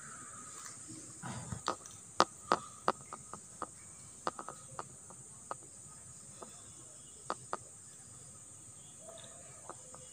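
Steady high-pitched insect chorus, with scattered sharp clicks during the first three-quarters.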